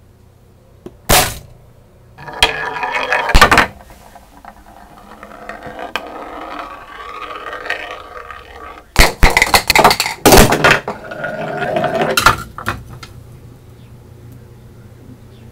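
A homemade Rube Goldberg chain-reaction machine running: a sharp snap about a second in, then a small ball or marble rolling along a metal channel, broken by bursts of clattering and clinking as light parts strike and fall, loudest a little past the middle.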